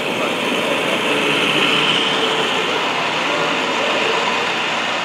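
Model train running past close by on the layout's track: a steady rolling rumble of wheels on rails and the locomotive's motor, swelling as it passes and loudest about two seconds in.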